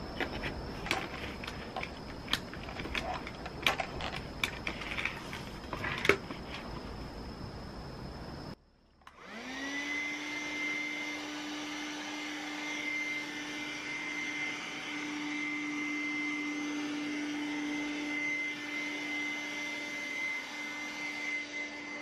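Clicks and knocks of hard plastic parts as a narrow nozzle is fitted onto a Boman cordless handheld vacuum. About nine seconds in, its motor starts, rising within a second to a steady whine over rushing air, almost like a full-size vacuum cleaner.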